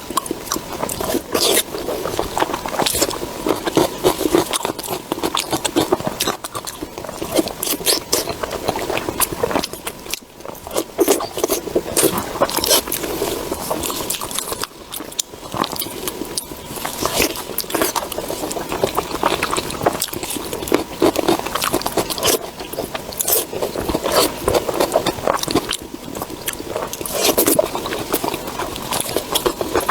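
Close-miked chewing and biting of food, a steady run of irregular wet clicks and crunches throughout.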